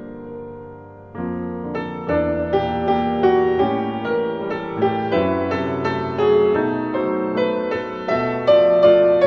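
Background piano music: a gentle melody of struck, decaying notes that fades near the start, then resumes with new chords about a second in.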